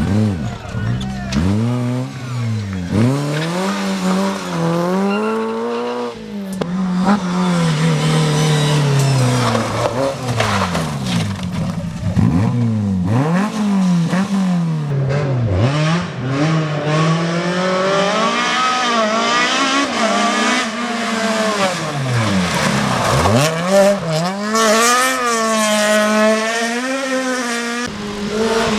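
Rally car engine driven hard on a stage: the engine note climbs under full throttle, then drops sharply as the driver lifts off or changes gear, over and over.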